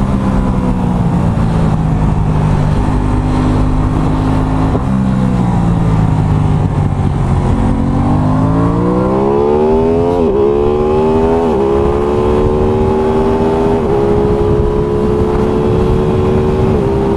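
Aprilia Tuono 660's parallel-twin engine under riding. Early on the revs step up twice, as on blipped downshifts, then fall away while slowing. From about eight seconds in it accelerates hard, the pitch climbing with four quick upshifts, each a brief dip in revs, the clutchless shifts of the factory quickshifter.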